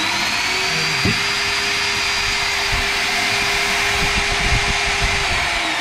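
Weka core drill's brushed motor running free at full speed with a steady high whine, starting to wind down near the end. It is a test run showing that the lead and power switch work.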